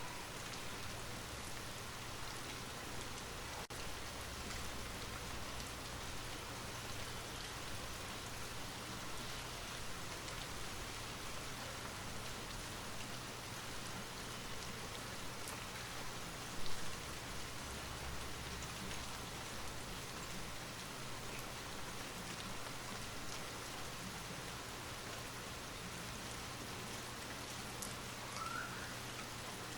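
Light rain falling steadily, an even patter of drops, with one brief louder tap a little past halfway.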